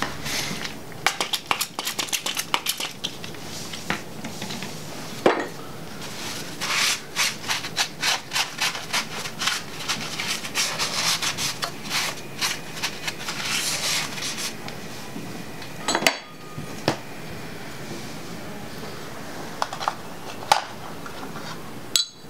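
Blue shop towel wiping the front face of an LS 5.3L engine block: quick, repeated rubbing strokes for much of the time, then a few separate clicks and knocks near the end.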